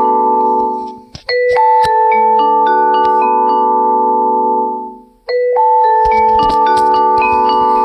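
A ringtone playing: a short melody of bell-like mallet notes, like a marimba or glockenspiel, looping about every four seconds with a brief break between repeats.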